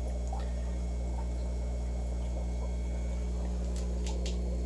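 Steady low hum of running aquarium equipment, such as air pumps and filters, holding one even pitch, with a few faint ticks near the end.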